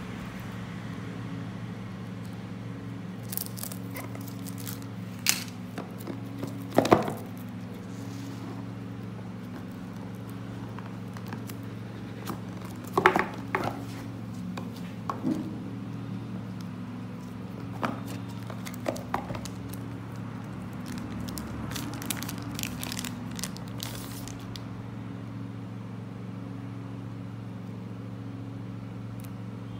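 A cardboard smartphone box being opened and the phone handled in its plastic film: scattered taps, scrapes and crinkles, with a couple of louder knocks, over a steady low hum.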